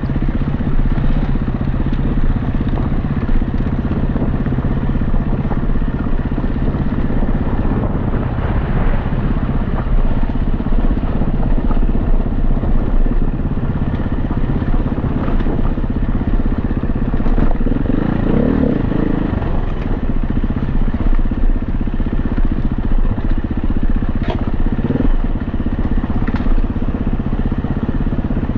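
Dirt bike engine running under way on a rough trail, heard from the bike itself, its pitch rising and falling with the throttle.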